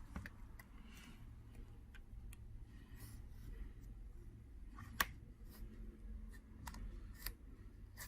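Faint scattered clicks and light scraping of a hand tool prying a laptop screen panel away from the strong adhesive holding it to the mid frame, with one sharper click about five seconds in.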